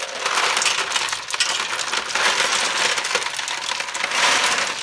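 Ice cubes poured from a plastic bin into a stainless steel pot of freshly pressure-cooked eggs, a dense continuous clatter of cubes striking the steel, the eggs and one another, swelling twice. It is the ice bath that stops the eggs cooking.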